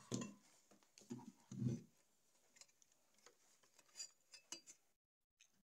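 Faint scattered clicks and light taps of small parts and tools being handled on a workbench.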